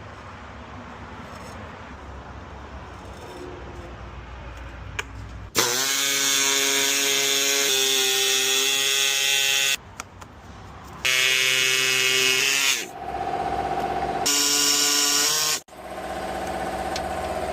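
Power drill or driver running in four bursts of one to four seconds, each starting and stopping sharply, with a steady whine that steps in pitch within a burst.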